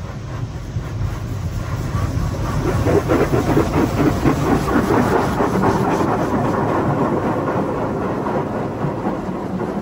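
High-pressure water jets of a HydroSpray Rainmaker touch-free automatic car wash spraying over the car, heard from inside the cabin as a loud, fluttering rush that grows louder about three seconds in as the spray passes over the body.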